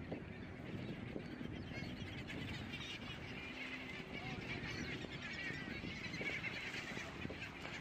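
A flock of seabirds, gulls among them, calling over and over as they dive onto the water in a feeding frenzy. The calls grow thicker about halfway through, over a steady wash of wind and water.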